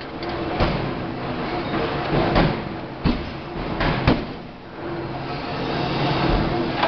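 2-ton forging hammer striking a red-hot workpiece between its dies, about five heavy blows at uneven intervals over a constant background of forge-shop machinery noise.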